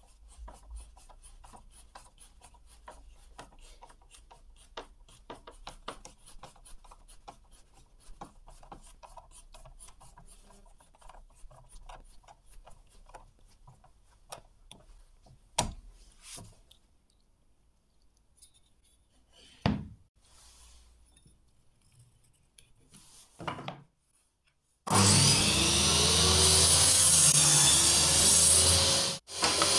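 Faint clicks and scrapes of steel threaded inserts being screwed into plywood with a hex-bit screwdriver. Then, about twenty-five seconds in, a table saw starts running loud and steady as it cuts wood, dropping out briefly just before the end.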